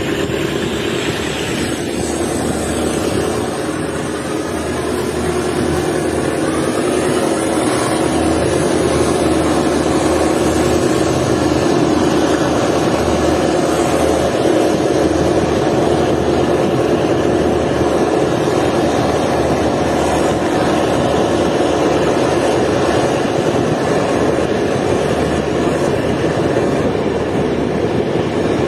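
Diesel locomotive of a passenger train running with a loud, steady engine sound that grows a little louder over the first ten seconds or so and then holds.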